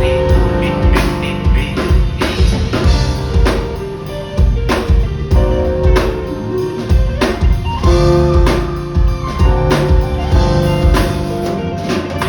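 Instrumental passage of a pop song: a steady drum-kit beat under bass and sustained melodic notes.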